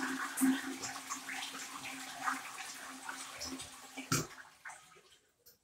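Toilet cistern refilling after a flush: water running and trickling, with a steady low hum, fading away. A sharp knock comes about four seconds in.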